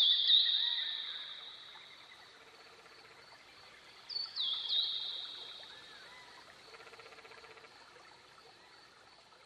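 A songbird singing: a phrase of a few quick, high, down-slurred notes running into a long high trill that fades away, sung at the start and again about four seconds later. Softer calls of other birds and a short rhythmic chatter sound faintly beneath it.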